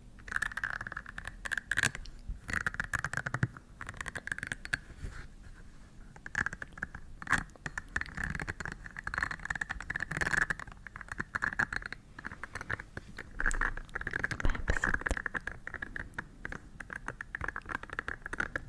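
Close-miked ASMR scratching and scraping: a dense run of quick little clicks and rustles that swells and fades in waves.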